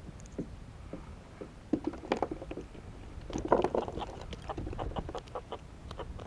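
Irregular knocks, taps and rattles on a kayak while a freshly landed fish is dealt with. They come thickest about two seconds in and again from about three and a half to four seconds.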